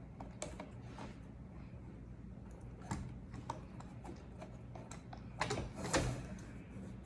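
Scattered small plastic clicks and knocks of an RC car wheel being twisted and pulled on its axle as it refuses to come off, with a louder run of clicks near the end.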